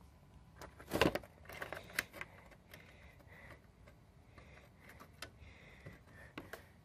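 Scattered clicks and knocks of a transistor portable radio being handled and set down, the loudest about a second in.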